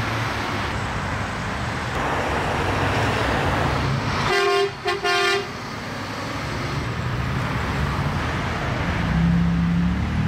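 Highway traffic passing, with a steady rush of tyres and engines. About four and a half seconds in, a vehicle horn honks twice in quick succession.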